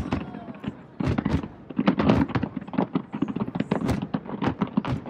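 Aerial fireworks bursting in quick succession: a dense run of sharp bangs and crackles, several a second, with a few louder reports among them.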